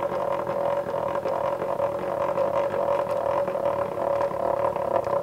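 Job-site table saw's blade-height crank being turned, the elevation mechanism whirring with a steady drone and fine rattling as the blade rises to full height. It stops shortly before the end.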